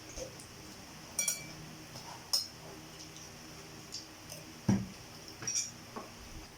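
Eating utensils clinking and scraping against a plate during a meal of spaghetti, a few scattered sharp clinks, two of them ringing, with a dull thump a little before five seconds in.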